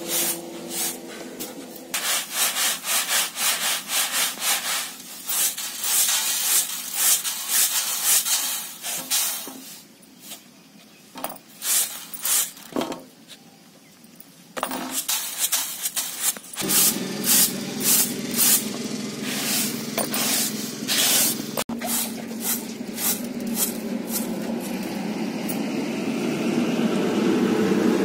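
Sesame seeds rattling and swishing on a woven bamboo winnowing tray, shaken and tossed in quick repeated strokes to winnow out grit and dust. After a brief lull, the strokes give way to a steadier rustle of seeds being worked across the tray by hand.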